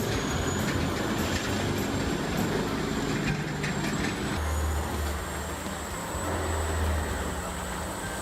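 Large industrial wood chippers running: a heavy engine and cutting machinery making a steady noise with a high thin whine. About four seconds in the sound changes abruptly to a deeper, steady engine hum, as of another machine.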